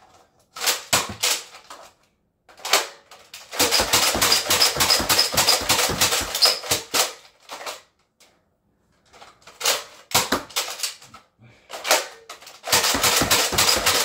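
Nerf Alpha Trooper pump-action foam dart blaster slam-fired in bursts of fast plastic clacking, one clack per pump and shot, the longest burst lasting about four seconds. A short quiet gap near the middle falls during a magazine change.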